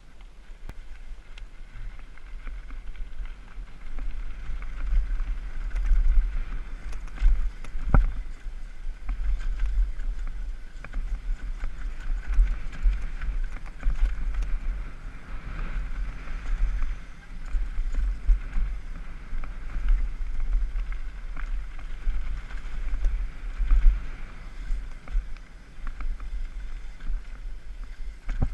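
Downhill mountain bike ridden fast over a rough dirt trail, heard from a helmet-mounted camera: a heavy, uneven rumble of wind and vibration on the microphone, with tyre noise on dirt and scattered knocks and rattles from the bike, one sharper knock about eight seconds in.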